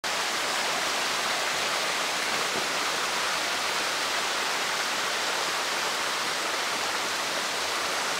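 Steady rushing of water flowing over the rocks of a creek, an even hiss that does not change.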